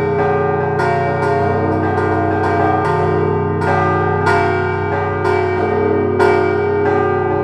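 Church bells of Veliky Novgorod ringing: several bells of different pitch are struck in an uneven rhythm, about once or twice a second. Their tones ring on and overlap over a low, sustained hum.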